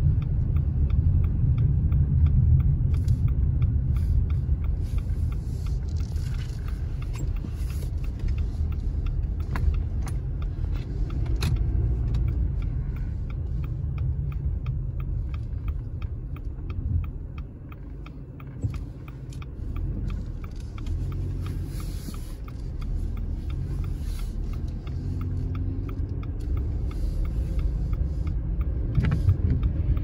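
Car driving along a snow-covered street, heard from inside the car: a steady low rumble of engine and tyres that eases off briefly about halfway through.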